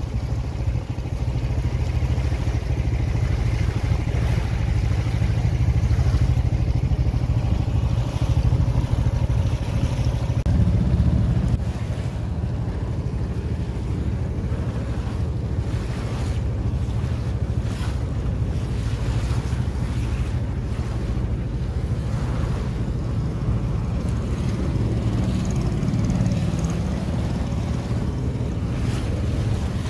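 Small boat moving over choppy lake water: a steady low motor rumble mixed with wind buffeting the microphone and waves slapping the hull.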